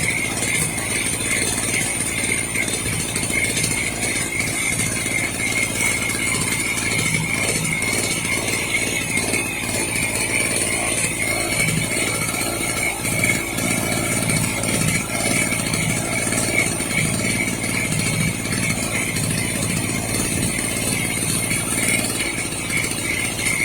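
Small portable generator's engine running at a steady speed, with a steady whine over the engine note.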